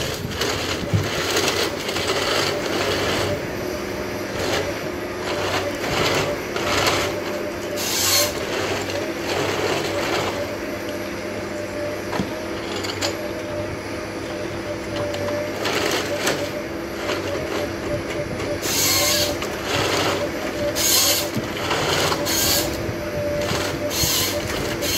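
Komatsu tracked forest harvester working: its diesel engine and hydraulics run steadily with a constant whine, broken by short bursts of crackling noise as the harvester head saws and feeds logs, one a third of the way in and several close together in the last third.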